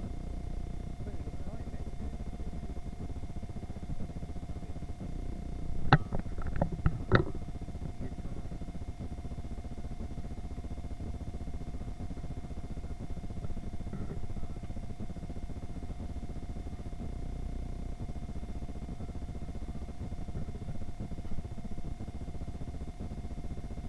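Supermarket aisle ambience: a steady low hum with faint constant tones. About six seconds in comes a quick run of four sharp clicks over a second and a half.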